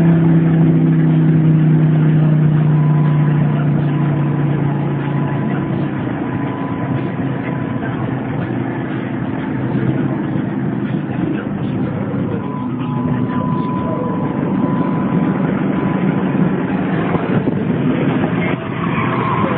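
Harley-Davidson bagger's V-twin engine running with a steady note that is strongest for the first several seconds, then grows quieter.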